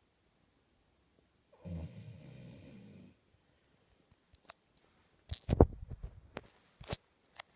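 A beagle snoring in its sleep: one drawn-out, wheezy snore about a second and a half in, then a quick cluster of short, sharp snorts and clicks past the halfway point.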